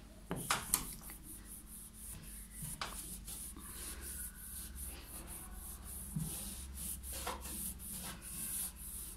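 Cut raw potato rubbed back and forth over the painted surface of a white door in quick repeated strokes, scrubbing stains off. A few sharp knocks in the first second.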